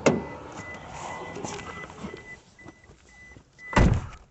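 Car door slammed shut with a heavy thump near the end, after a knock at the start and a few seconds of rustling. A high electronic chime beeps on and off until the door shuts, then stops.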